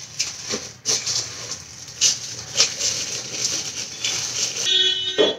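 Plastic packaging wrap rustling and crinkling in irregular bursts as it is handled, with a short pitched squeak near the end.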